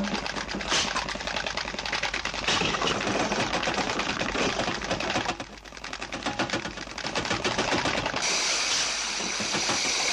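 Rapid, continuous mechanical rattling clatter, with a short lull about halfway; about eight seconds in it gives way to a steady hiss.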